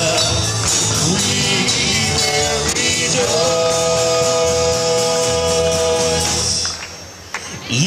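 Live Christian rock band playing: a male singer over drums and electric and acoustic guitars, holding one long note in the middle. Near the end the band stops short for under a second before coming back in.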